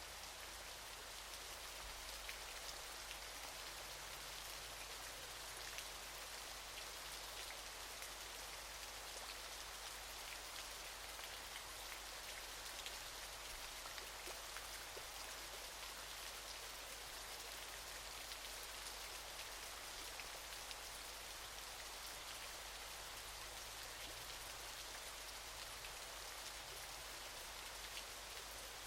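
Waterfall: a steady rush of falling water with a fine splashing patter, unchanging throughout.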